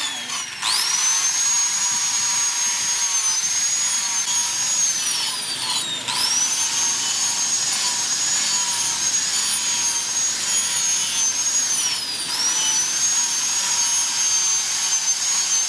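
Electric angle grinder with a sanding disc whining at high speed as it sands a forged steel axe head. It spins back up within the first second, and its pitch dips and recovers twice, deeply about six seconds in and less deeply about twelve seconds in.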